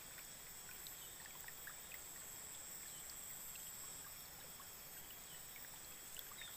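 Faint, steady rush of shallow river water, with small scattered drips and trickles.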